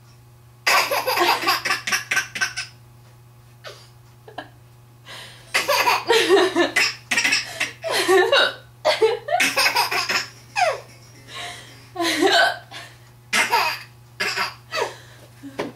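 A woman hiccuping over and over, short sharp hiccups every second or two, while a young child laughs at them in bursts.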